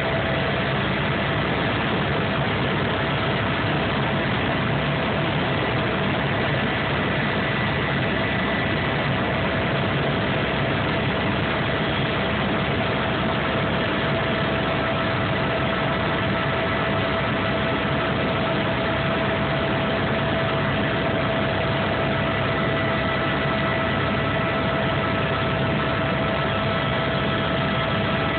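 Steady in-flight noise of a helicopter heard from inside its cabin: a constant engine and rotor drone with a steady tone running through it.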